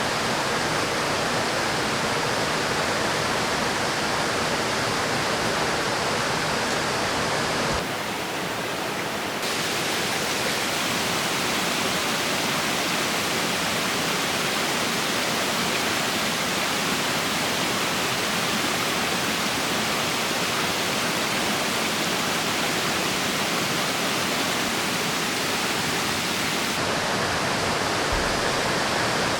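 River water rushing, a steady loud hiss of flowing water; its tone shifts abruptly a few times, about 8, 9½ and 27 seconds in.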